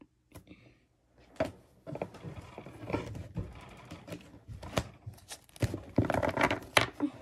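Trading cards and pack wrappers being handled: rustling with a run of clicks and taps, busiest near the end.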